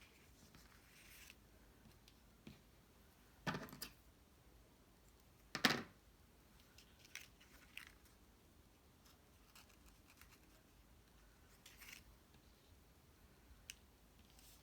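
Cardstock pieces being handled on a paper pop-up card: soft rustles and small ticks, with two short, louder paper rustles about three and a half and five and a half seconds in.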